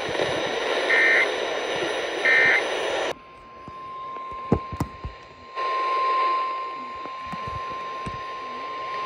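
Radio static with two short digital squawks about a second apart, the end-of-message code bursts of an Emergency Alert System weather radio broadcast. A little after three seconds the static cuts out and the steady 1050 Hz NOAA Weather Radio warning alarm tone starts, faint at first, then louder about five and a half seconds in.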